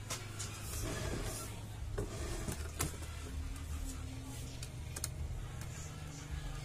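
Light clicks and taps of plastic parts as a disc is handled and pressed onto an opened DVD player's spindle, a few sharp clicks over a low steady hum.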